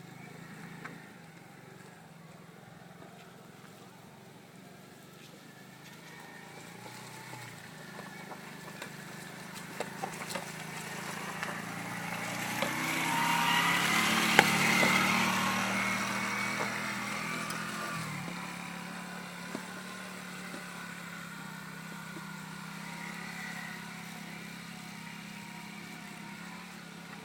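Quad bike engine running off-road. It grows louder to a peak about halfway through, then falls away again, with a few sharp knocks along the way.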